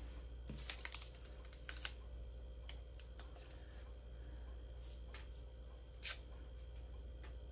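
A few scattered light clicks and taps from small objects being handled, over a low steady hum.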